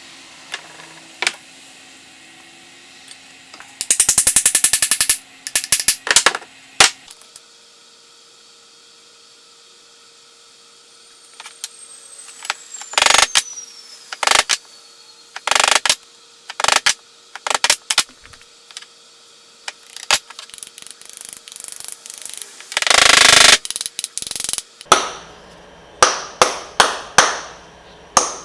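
Hand hammer blows on steel: scattered sharp knocks and a short burst of rapid clicking, then a run of evenly spaced ringing strikes, about two a second, near the end.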